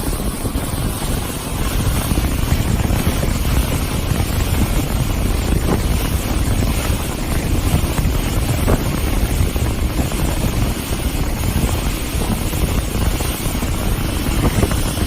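Wind buffeting the microphone over the steady running noise of a tour boat under way, with water rushing past the hull.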